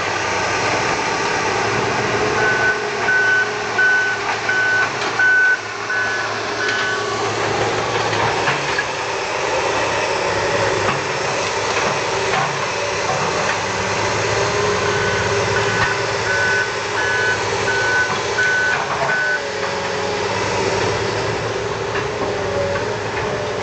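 A heavy vehicle's reversing alarm beeping steadily, about twice a second, in two runs of several seconds each, over its engine running.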